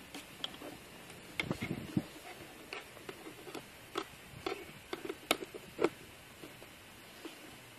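Irregular light clicks and taps of small plastic parts being handled, with a small cluster about one and a half seconds in and scattered single clicks after, over faint steady hiss.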